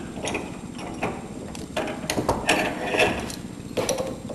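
Metal hose fitting being worked onto the end of a Flexzilla air hose: irregular clicks and scrapes of metal parts handled and pressed together, busiest around the middle, with a sharper knock near the end.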